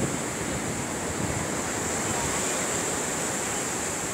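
Sea surf washing steadily onto a sandy beach, with wind rumbling on the microphone.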